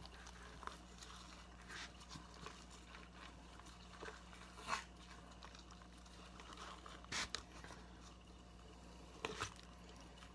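Faint, scattered rustles and small wet clicks of gloved hands peeling the tough membrane off a rack of raw ribs in a foam tray. A low steady hum runs beneath.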